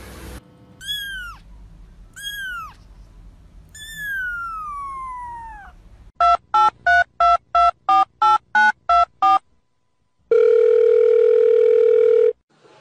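Kitten meowing three times, two short high meows and then a long falling one. Then eleven quick telephone keypad dialing tones in an even rhythm, followed by a steady telephone tone for about two seconds.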